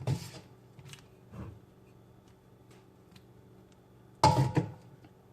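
Light kitchen handling sounds while a casserole is being assembled: a brief rustle at the start, a small click, then a short, louder scrape or clatter about four seconds in.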